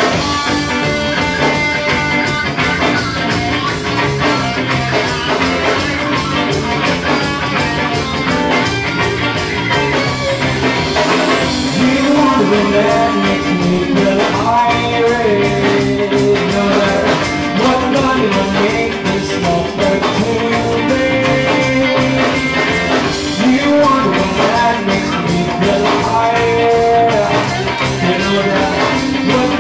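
Live rock band playing through a PA: two electric guitars, bass guitar and drums, with a steady beat.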